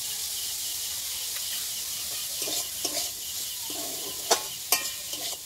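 Sliced onion, carrot and capsicum sizzling in oil in a kadai. From about two seconds in, a metal spatula scrapes and stirs through them, with two sharp knocks against the pan near the end.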